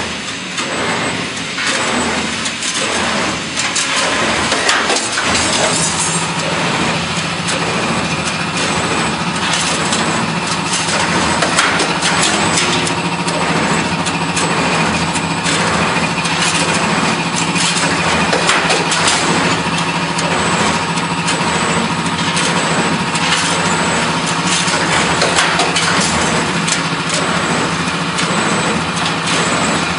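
CNC wire bending machine running: feed rollers drive wire through the straightener into the rotating bending head, forming square stirrups. A steady motor hum sets in about five seconds in, with repeated clicks and clatter from the feeding and bending throughout.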